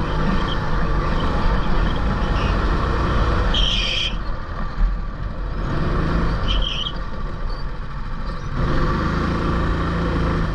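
Rental go-kart engines running with a steady low hum, and a short high squeal twice, about four and six and a half seconds in.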